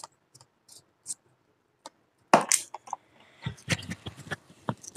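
Handling noise from a clip-on microphone and its small parts: a few faint light clicks, then from about two seconds in louder clicking, rustling and scraping right at the microphone.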